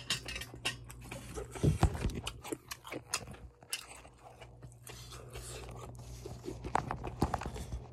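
Close-up eating sounds of a person eating malatang: chewing and biting, with many short wet clicks and smacks and small crunches.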